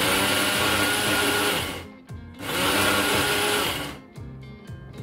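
A 400-watt Leestar Nutri Mix blender's small chutney jar grinding coconut and dal in two pulses, about two seconds and a second and a half long, with a short gap between. The motor runs only while the button is held down and stops when it is released.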